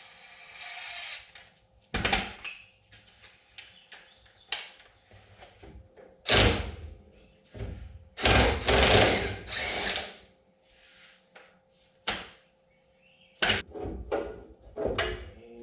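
Metal tools knocking and clanking against a car's underside parts during engine and transmission removal: a series of sharp knocks, with a longer rattling, scraping stretch about eight seconds in.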